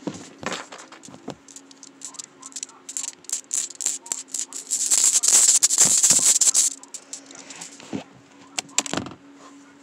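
Fidget toy being handled and shaken in the hand, giving a dense rattle of many small clicks that is loudest in the middle, with scattered single clicks near the start and end.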